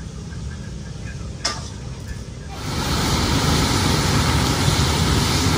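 Tiny shrimp sizzling as they are stir-fried in a wok and turned with a metal ladle. The loud, steady sizzle starts about halfway in, after a low background rumble with a single click.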